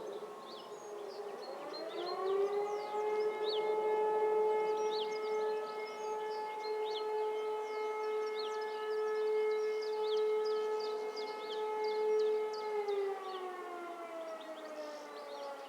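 E57 electromechanical motor siren sounding one tone of the German fire-alarm signal. It winds up over about a second, holds a steady tone for about ten seconds, then winds down with a falling pitch near the end. At the start a more distant siren is still winding down.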